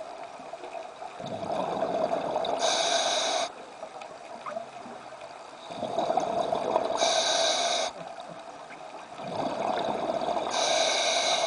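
Scuba diver breathing underwater through a regulator: three slow breaths about four seconds apart, each a spell of hissing and bubbling.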